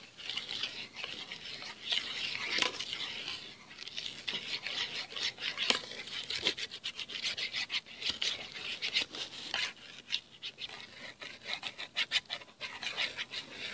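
A metal spoon stirring thick icing of icing sugar and water around a shallow metal tin, scraping against the bottom and sides with many quick clicks and rubs.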